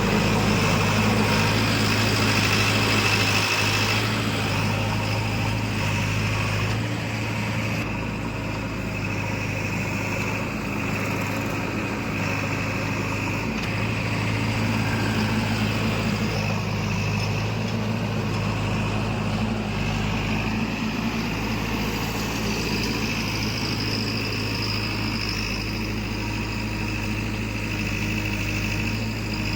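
Heavy diesel engine running steadily with a constant low hum, a little louder for the first few seconds.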